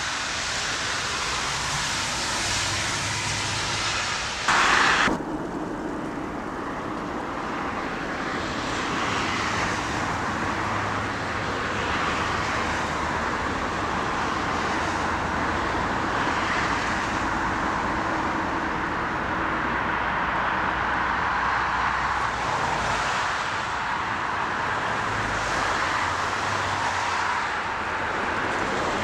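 Airbus A380's jet engines running with a steady rushing noise as the airliner passes. About five seconds in there is a brief loud burst, after which the sound turns duller with less hiss.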